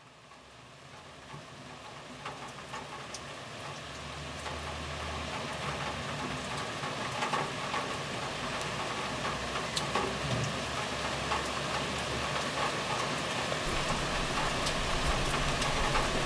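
Street ambience fading in slowly from silence: a steady hiss with scattered sharp ticks and crackles, with a low rumble of traffic coming in about four seconds in, dropping away, and returning near the end.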